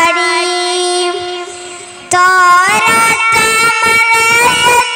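A boy singing a Malayalam devotional song in praise of Medina into a microphone. He holds one long note that fades away over about two seconds, then starts a new phrase with ornamented, wavering turns of pitch.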